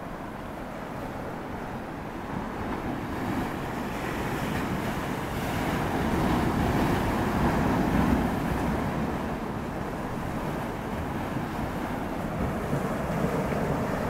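Sea waves breaking and washing against a rocky shore, a steady rushing that swells louder for a few seconds in the middle, with wind buffeting the microphone.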